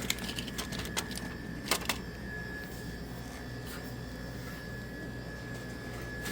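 A few light clicks and knocks in the first two seconds as packs of gum are slid into the spiral coils of a vending machine tray, over a steady hum with a thin high tone.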